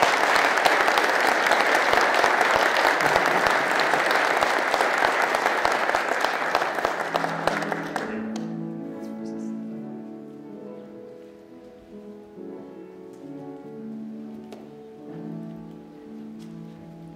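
Congregation applauding for about eight seconds, then fading. Slow, soft instrumental music with long held notes follows.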